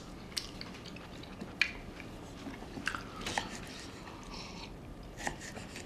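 Quiet eating and tea-table sounds: chewing, with a few scattered light clicks and clinks of a mug and a knife on a plate.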